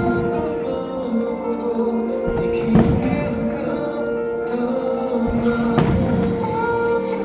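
Music with singing and held notes accompanying a fireworks show, with several firework bursts thudding through it.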